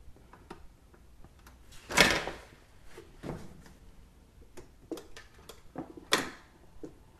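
Automatic record changer of a small portable record player cycling after being switched on: a loud clunk about two seconds in as the record drops from the spindle onto the platter, a softer knock a second later, and another loud clunk about six seconds in, with light mechanical ticking between.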